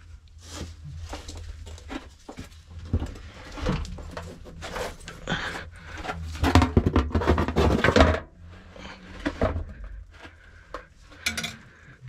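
Irregular knocks, scrapes and clatter as a cut-to-size platform is worked under a cast iron submersible pump in its sump pit. The loudest run of clatter comes about six to eight seconds in.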